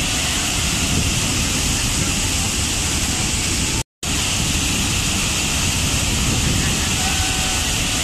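Large waterfall crashing onto rocks: a steady, dense rush of falling water that cuts out completely for a split second about four seconds in.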